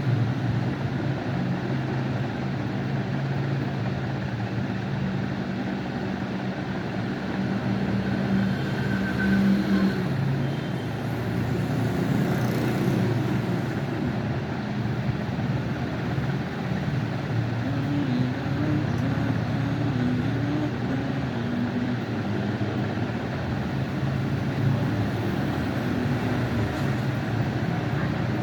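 Steady low rumble with a hum, unbroken throughout.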